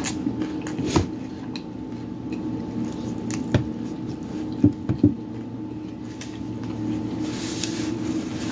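Close-up eating sounds of a person chewing a soft falafel taco with the mouth closed, with a few sharp clicks and smacks, and a brief rustle of a paper napkin near the end. A steady low hum runs underneath.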